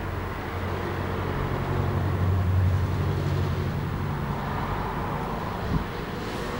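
Street traffic: a steady low rumble of vehicle engines that swells in the middle, with one short knock near the end.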